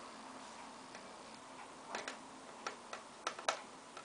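A small Phillips screwdriver tightening tiny laptop hinge screws: a few light clicks and ticks, mostly in the second half.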